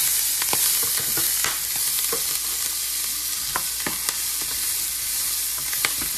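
Broccolini sizzling as it sautés in butter and olive oil in a skillet, stirred with a wooden spatula, with scattered sharp clicks over a steady hiss.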